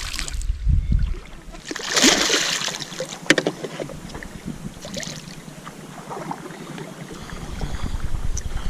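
Water splashing around a canoe, in short hissy bursts near the start and about two seconds in, with a sharp knock a little later and scattered small ticks.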